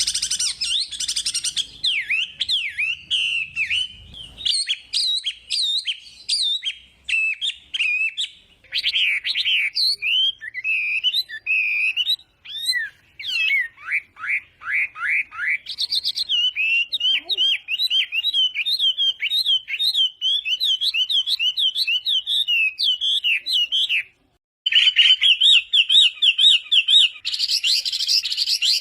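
Hwamei (wambi) singing in full: a long, loud, varied song of quick whistled notes sweeping up and down, phrase after phrase, with a brief break about three-quarters of the way through.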